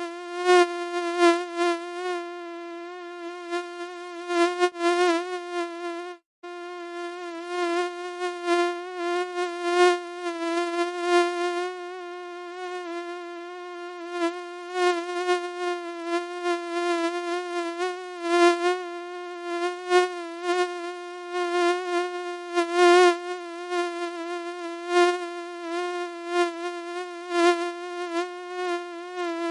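Mosquito buzzing: a steady, high, whining hum that wavers slightly in pitch, its loudness swelling and fading over and over. It cuts out for a moment about six seconds in.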